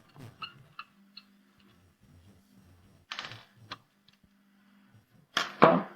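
Small clicks and ticks of a screwdriver working stuck screws out of the floppy-drive mount inside a Commodore 65 case. A short scraping rustle comes about three seconds in, and a louder clatter of the parts being handled comes near the end.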